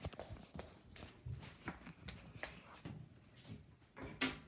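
Scattered light clicks, rustles and footfalls of someone moving about and handling things, with a louder bump near the end.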